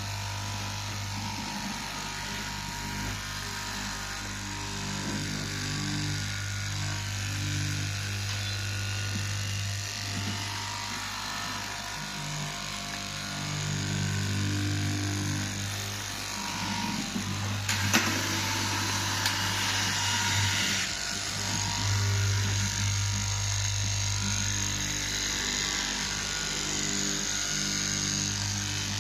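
Small electric motor running with a steady hum that waxes and wanes, with a sharp click about 18 seconds in followed by a few seconds of louder hiss.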